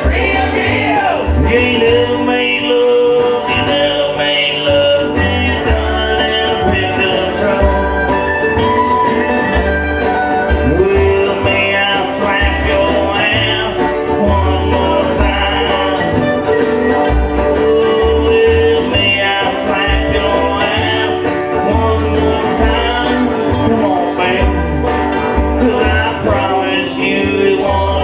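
Live jug band playing a country tune, with banjo, acoustic guitar, dobro and washtub bass keeping a steady bass pulse underneath.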